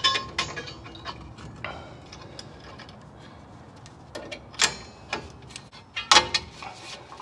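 Scattered sharp metallic clicks and clinks as locking pliers unhook a steel return spring from the parking brake shoes on a Nissan Titan's rear hub. The loudest clinks come about four and a half and six seconds in.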